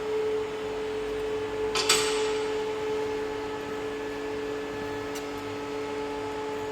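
A single sharp metallic clink about two seconds in, from spanners and fittings on a lift's hydraulic cylinder, over a steady electrical hum.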